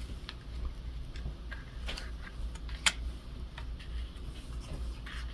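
Light rustling and scattered small clicks of paper die cuts being sorted through by hand, with one sharper click about three seconds in, over a low steady hum.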